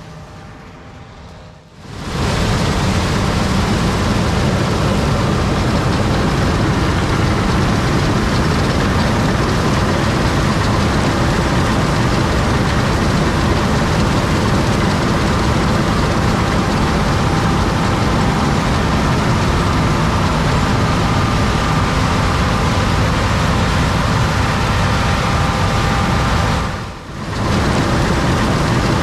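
John Deere S780 combine harvester running steadily while harvesting, a loud even machine noise heaviest in the low end with faint steady tones above it. It comes in loudly about two seconds in and dips briefly near the end.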